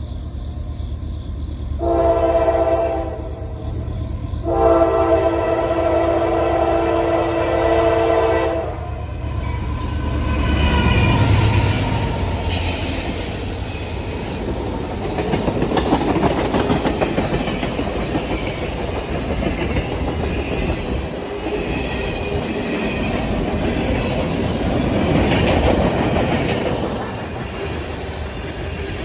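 A train's locomotive horn sounds a short blast and then a long blast, both chords of several notes, over the low rumble of the approaching engine. The train then passes close by, its wheels rolling and clattering over the rail joints, with some squealing of the wheels.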